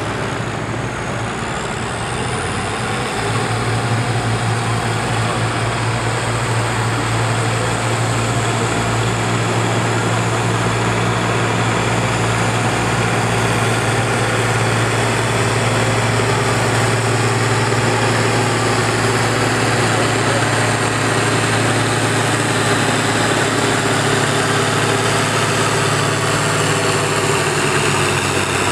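Farm tractor's diesel engine working hard as it pulls the weight-transfer sled down the track, a steady heavy drone that builds about three seconds in and drops in pitch near the end. A faint high whine rises over the first few seconds.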